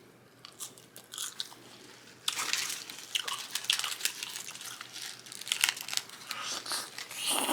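A person chewing and crunching food. A few soft mouth clicks come first, then from about two seconds in a dense crackly run of chewing that lasts almost to the end.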